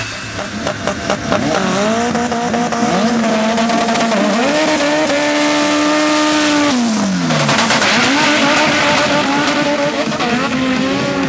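Turbocharged front-wheel-drive drag hatchback doing a burnout: the engine is held at high revs while the tyres spin and squeal, the revs drop away about seven seconds in, then pick up again, rising and falling.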